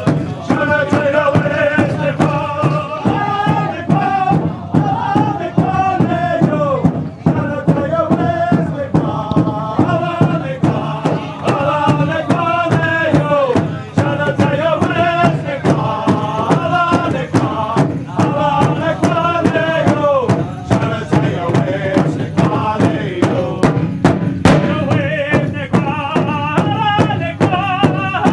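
Powwow drum group: several singers chanting together over a steady beat on a large drum.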